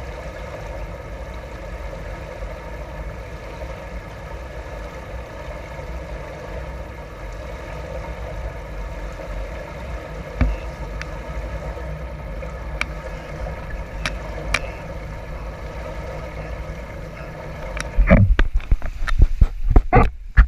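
Steady hum of an indoor swimming pool hall, with a few sharp clicks. About eighteen seconds in, a run of loud knocks and thuds breaks in as the camera at the pool edge is moved.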